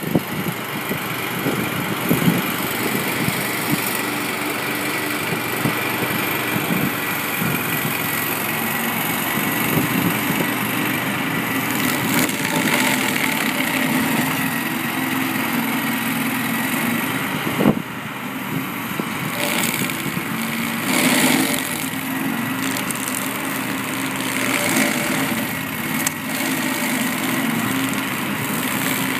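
Stump grinder running steadily while its cutting wheel grinds into a stump; the grinding noise swells now and then, with a sharp knock about eighteen seconds in.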